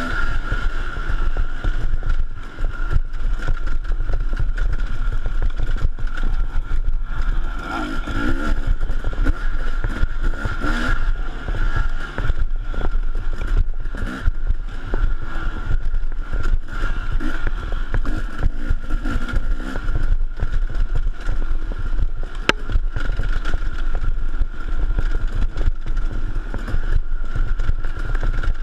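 A KTM dirt bike engine running and revving on a wooded race trail, heard from a camera on the bike, with many short knocks and rattles throughout as it rides over rough ground.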